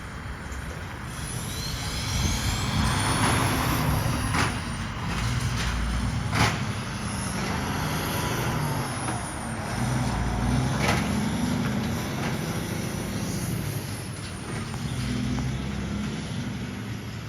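Kenworth day cab truck's diesel engine running, its note rising and falling several times, with a few short sharp clicks.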